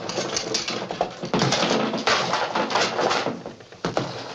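Machine-gun fire in rapid, close-packed shots, the reports running together into a continuous racket, easing off about three and a half seconds in, with one last sharp crack near the end.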